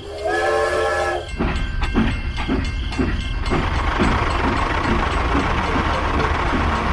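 A tractor's horn sounds for about a second, then the tractor's engine runs steadily as it drives off.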